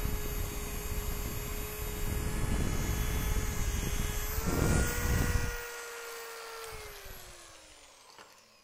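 Pipe polisher (an electric belt sander with spring-loaded arms that wrap the belt around the tube) running with its abrasive belt on a metal tube, sanding a welded joint smooth. A little after four seconds it comes off the tube and its whine rises slightly. Then it is switched off and winds down, the whine falling in pitch as it fades.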